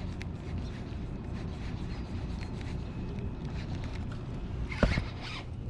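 Steady low rumble of wind on the microphone while a baitcasting reel is cranked to retrieve a lure, with a short knock about five seconds in.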